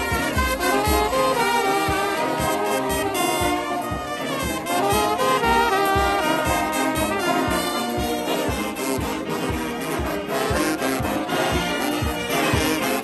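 Brass band playing a tune, flugelhorns and trombones sounding together over a steady beat.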